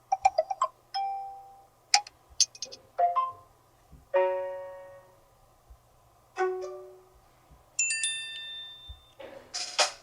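Samsung Galaxy Tab S2 notification tones, previewed one after another. About nine short electronic chimes and jingles follow each other roughly a second apart: some are a quick run of notes, others a single ringing tone that fades out. Near the end comes a brief, noisier chime.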